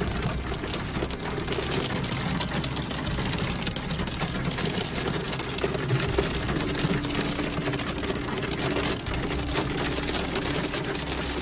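Hail drumming on a car's roof and windshield, heard from inside the car as a dense, rapid, unbroken clatter over a low steady hum.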